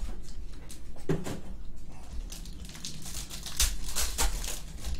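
Foil trading-card pack crinkling and rustling as it is torn open by hand, loudest in the second half. A soft knock comes about a second in.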